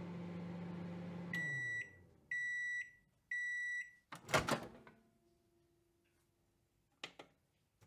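Microwave oven running with a steady hum that winds down as the cycle ends, then three beeps about a second apart signalling the food is done, then a clunk as the door is opened. A couple of short knocks come near the end.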